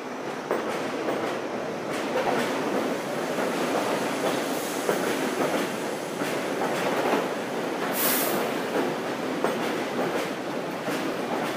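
R32 subway train pulling out of the station and gathering speed, getting louder over the first two seconds. Its wheels clack over the rail joints at irregular intervals, with a short high hiss about eight seconds in.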